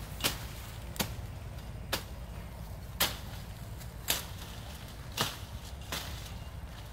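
A knife hacking at branches and vines in a bush: seven sharp chops, roughly one a second, over the rustle of leaves.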